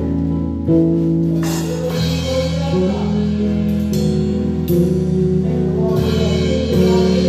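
Gospel band playing: sustained keyboard chords that change every second or two, with a drum kit close by, its cymbals crashing several times.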